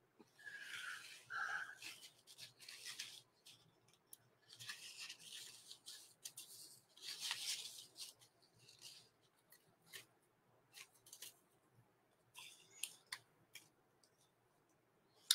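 Soft rubbing and rustling handling noises in short bouts of about a second, with a few light clicks between them.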